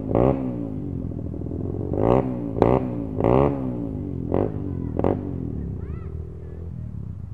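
Dirt bike engines revving hard in repeated short throttle bursts, their pitch sweeping up and down, then settling into a steadier lower drone after about five seconds.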